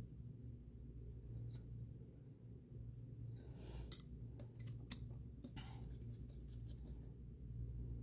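Faint metal scratching and clicking from a hex driver working the small screws at an RC car's motor and pinion, with two sharper ticks about four and five seconds in, over a steady low hum.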